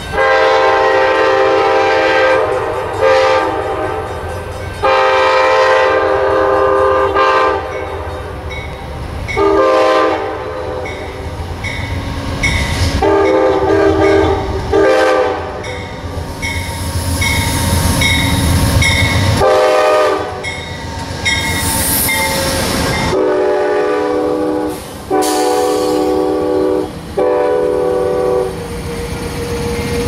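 GE P42DC Genesis diesel-electric locomotive arriving, sounding its air horn in about ten chord blasts, some long of two to three seconds and some short. Underneath runs the rumble of the engine and wheels on the rails, with a brief hiss about two-thirds of the way through.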